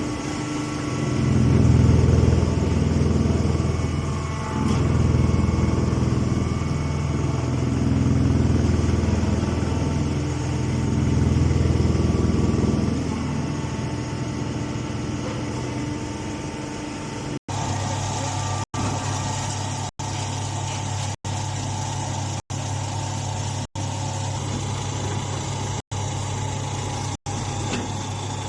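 Hydraulic baler's power unit running with a steady low drone, growing louder and easing off in long swells through the first half. In the second half it runs evenly, broken by short dropouts about once a second.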